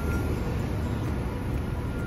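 Hiroden 800-series streetcar standing at the stop amid street traffic: a steady low rumble with a faint high tone briefly near the start.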